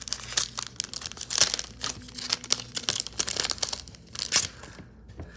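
Foil wrapper of a Yu-Gi-Oh booster pack crinkling and tearing as it is ripped open by hand, a dense run of crackles that dies away about a second before the end.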